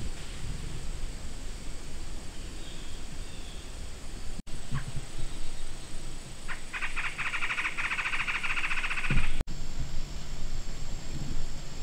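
A wild animal's rapid, buzzy trill, about two and a half seconds long, over a quiet outdoor background, ending with a low thump. A couple of faint clicks come shortly before the trill.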